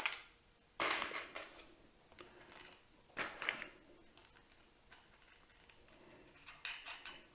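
Small metal hardware clicking and rattling in three short bursts as a washer and M6 nut are picked up and fitted by hand onto a battery cell terminal.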